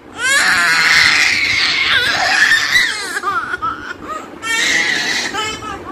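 A baby squealing in a high pitch during a tussle with its twin: one long squeal of about three seconds, then a shorter one about four and a half seconds in.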